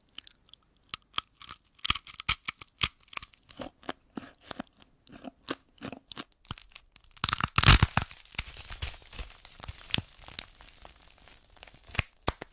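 Crisp potato chips crunching: a run of sharp, irregular crackles, with a louder, denser crunch about seven seconds in.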